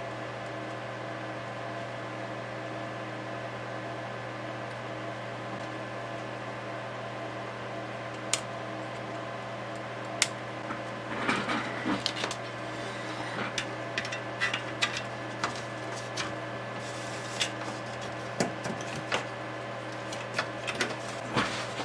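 Steady electrical hum with several constant tones, broken by two sharp snips about eight and ten seconds in as flush cutters trim the freshly soldered leads of an LCD backlight. After that come scattered small clicks and rattles of the display assembly being handled and fitted back into the synthesizer's chassis.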